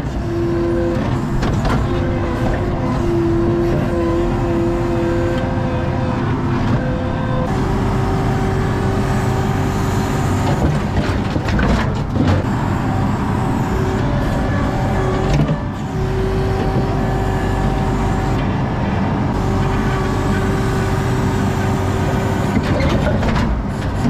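ASV RT-40 compact track loader running under load, heard from inside its cab, with a steady whine over the engine that shifts pitch about a third of the way in. A few sharp knocks near the middle as the forks work over the steel dumpster.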